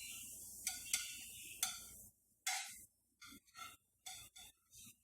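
A kitchen utensil clinking against cookware several times, each clink sharp with a short high ring, over a low steady hum that cuts out about two seconds in.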